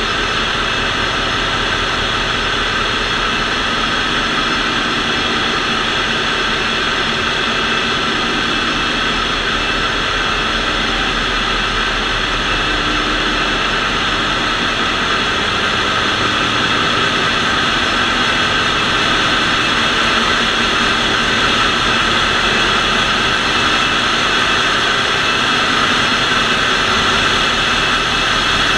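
Engine-room machinery running: a loud, steady din of engines and auxiliary machinery with several steady whining tones over it, growing a little louder in the second half.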